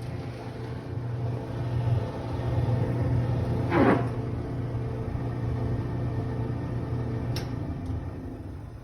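Clothes dryer running with a steady electrical hum. There is a short scraping sweep about four seconds in, and the hum eases off near the end.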